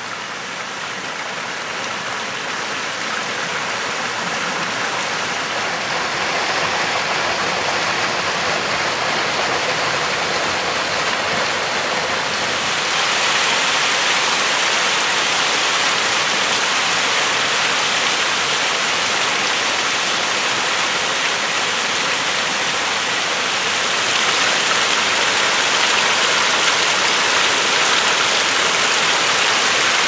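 Mountain stream rushing and splashing over boulders, a steady water noise that swells over the first few seconds and grows louder in two steps, about halfway through and again near the end.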